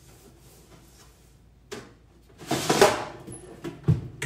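A short rubbing and scraping noise about two and a half seconds in as crumbs are wiped from a countertop air fryer oven, then a few knocks and a low thump near the end as its door is handled.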